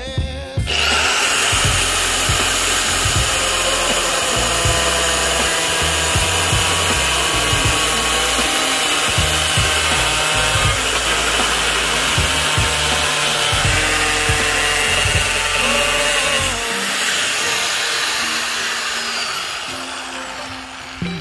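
Electric angle grinder with a cutting disc starting up about half a second in and running steadily as it cuts a plastic PVC sheet, growing quieter in the last few seconds as the disc comes up off the sheet.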